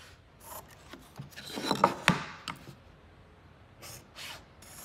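Pencil drawing layout lines on a wooden board along a metal marking gauge: short scratching strokes, with a longer run of scratching and a couple of sharp clicks about two seconds in, and a few more strokes near the end.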